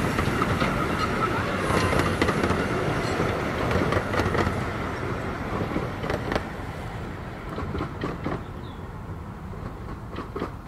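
15-inch gauge miniature steam train, a small tank locomotive and its open coaches, rolling past and away, the sound fading steadily. The coach wheels click over rail joints in pairs, about every two seconds in the second half.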